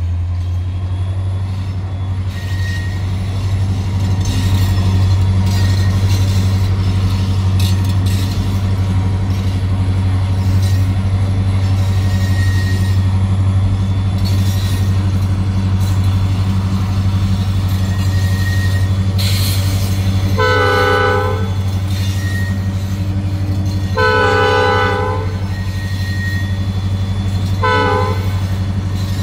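Steady low rumble of a loaded freight train running alongside. About two-thirds of the way in, the lead SD40-2 diesel locomotive's multi-tone air horn sounds the grade-crossing signal: two long blasts, a short one, and the start of a final long one.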